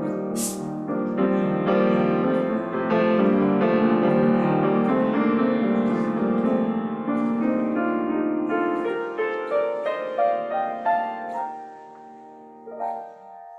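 Piano playing a slow piece; near the end a short run of rising notes leads into a final chord that rings and fades. A brief hiss sounds about half a second in.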